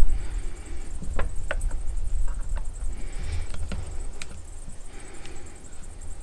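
Hand tools clicking and tapping as a Torx key and socket work the chain-brake screws out of a chainsaw: a scattering of short, sharp clicks at irregular intervals.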